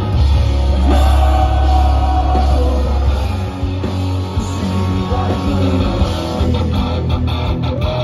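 Post-hardcore rock band playing live: distorted electric guitars, bass and drums with a singing voice, loud and bass-heavy. The deep bass drops away for a few seconds in the middle, then returns.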